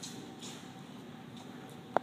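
Quiet room tone of a large indoor arena with a faint steady hum and a few faint soft thuds, then one short sharp click just before the end.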